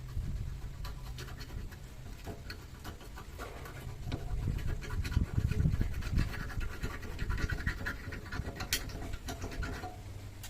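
Irregular scratching and scraping with many small clicks and knocks over a low steady hum, busier and louder from about the middle on.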